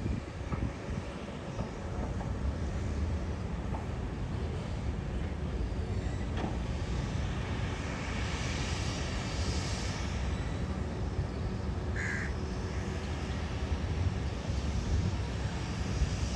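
Heavy construction machinery, an excavator and trucks, running with a steady low engine rumble. A brief high-pitched sound cuts in about twelve seconds in.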